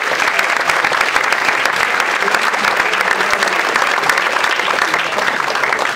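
Large audience applauding, many hands clapping in a dense, steady stream.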